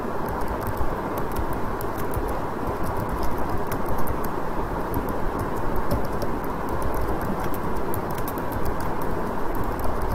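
Computer keyboard being typed on: a quick, irregular patter of key clicks over a steady background hum.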